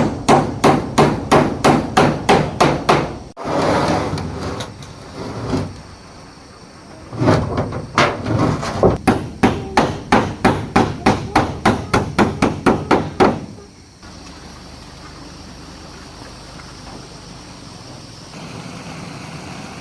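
Hammer driving nails into wood in quick, even blows, about four or five a second: a run of about three seconds, then after a pause a longer run of about six seconds.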